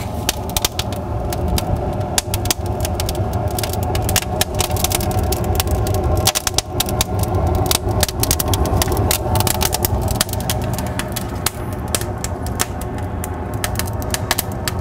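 Newly lit kindling and cardboard fire in the firebox of a log boiler, crackling with many sharp pops over a steady low roar as it catches.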